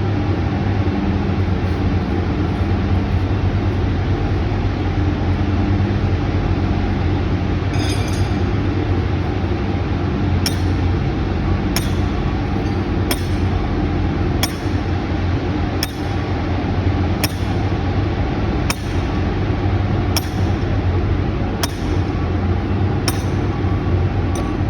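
Sledgehammer driving steel form pins, sharp ringing metal blows about one every second and a half, starting about ten seconds in, over the steady drone of an engine running. A brief clinking of metal comes a couple of seconds before the blows begin.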